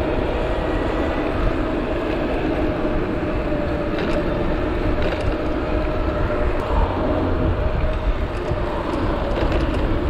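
An e-bike's 750 W geared rear hub motor running at speed, a steady whine that drifts slightly in pitch, under wind rush on the chest-mounted camera's microphone and tyre rumble on the asphalt. A few short knocks come from bumps in the road, about four and five seconds in and again near the end.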